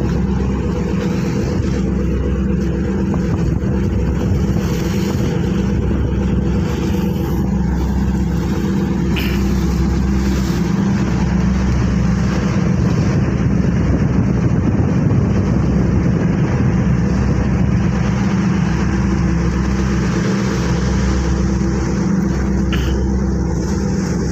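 A seagoing tug's 3,200 hp diesel main engine running steadily under way, a deep, even drone heard from the open deck. Over it, a constant rush of wind and water along the hull.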